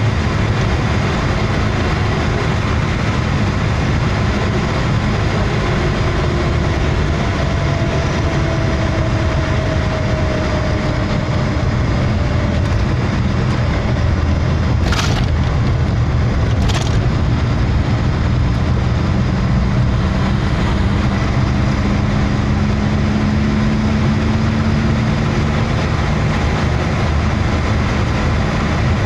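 Steady engine and road noise heard from inside a moving vehicle's cabin, with a low rumble throughout and the engine's pitch slowly rising for several seconds near the end. Two sharp clicks come about two seconds apart around the middle.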